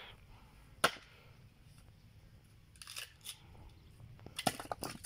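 An axe strikes a log round on the chopping block about a second in, one sharp crack as the wood splits. It is followed by a few lighter wooden knocks and a quick cluster of clatter near the end as the split pieces are handled and thrown onto the woodpile.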